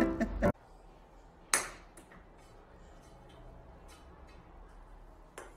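Music cuts off about half a second in. Over quiet room tone there is then a single sharp knock about a second and a half in, ringing briefly, followed by a few faint small taps.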